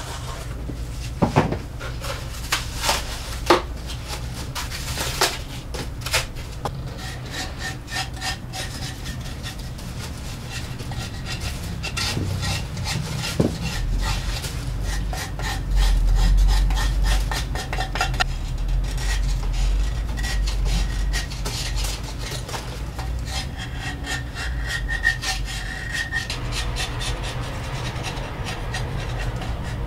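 A hand scraper's blade scraping crumbly green impression foam off a white foot cast in quick, repeated rasping strokes, with a few sharp knocks in the first few seconds.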